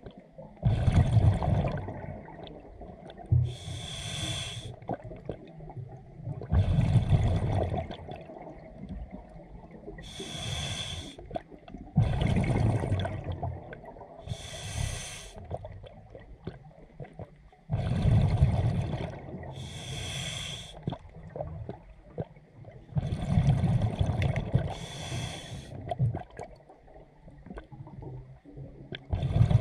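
Scuba diver breathing through a regulator: a hissing inhalation with a faint whistle alternates with a bubbling exhalation, about one breath every five to six seconds.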